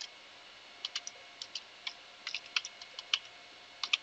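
Computer keyboard being typed on: a quick, irregular run of light key clicks.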